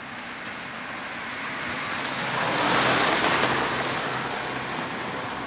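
A road vehicle passing by: a rushing tyre-and-road noise that swells to a peak about three seconds in and then eases off.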